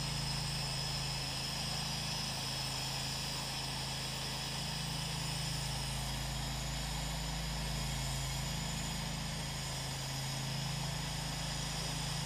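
Pressure-washing rig's engine running steadily, with the hiss of the rinse water spraying from the wand onto the brick.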